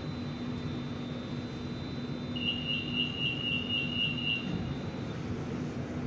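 Bangkok MRT Blue Line door-closing warning: a run of rapid high beeps, about four a second for some two seconds, starting about two and a half seconds in, signalling that the doors are about to close before departure. Underneath, the steady hum of the stopped electric train.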